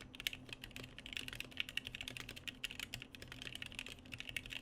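Gingham mechanical keyboard with Pom Panda switches being typed on quickly: a dense, uneven run of keystroke clacks.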